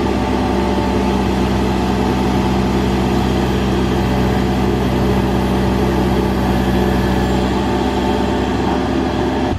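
Diesel engine of a Case 580 Super N backhoe loader running steadily.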